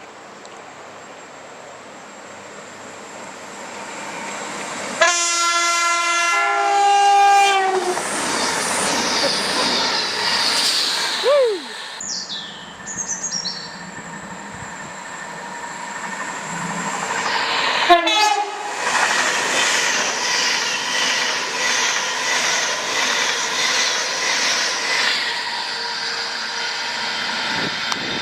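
A passing train's two-tone horn sounds about five seconds in, stepping between its two notes, and the train then rushes past with wheel clatter. The sound breaks off abruptly near the middle. Around eighteen seconds in a second short horn blast leads into another train running past.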